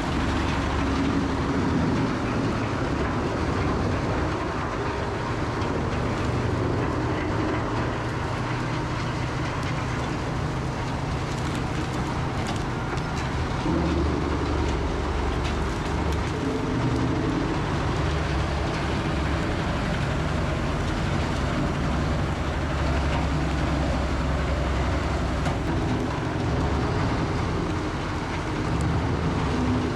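Heavy wood-grinding equipment running steadily at work: a Rotochopper B66L wood grinder with a wheel loader, in a dense rumble whose low drone rises and falls several times.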